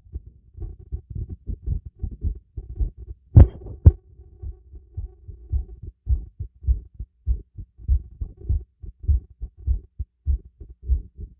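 Heartbeat heard through a stethoscope on the chest: low lub-dub thumps at a quick pace, a little under two beats a second, raised by light exercise. One louder, scratchier knock comes about three and a half seconds in.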